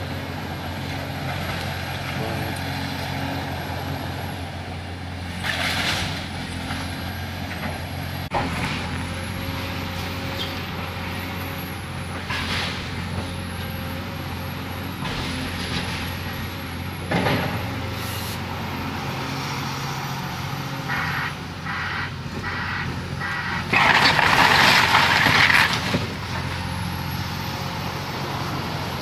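Tracked excavator's diesel engine running steadily while its bucket tears a house apart, with scattered crashes of breaking wood and debris. The longest and loudest crash comes about four-fifths of the way through.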